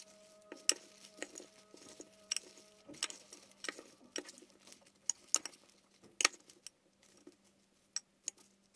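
Salad being tossed with a metal spoon and fork in a glass bowl: irregular light clicks and clinks of metal against the glass, with the rustle of lettuce leaves. The clinks grow sparser near the end.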